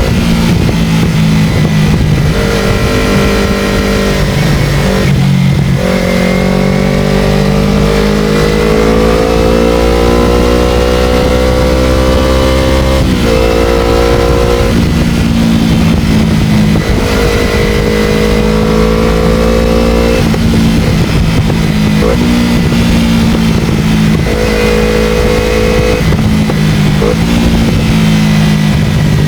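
Motorcycle engine running under way, its note climbing slowly and then dropping back several times as the rider shifts gears.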